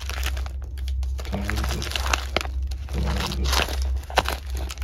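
Paper notebook pages being leafed through by hand, rustling and flapping in a string of sharp crackles, over a steady low hum.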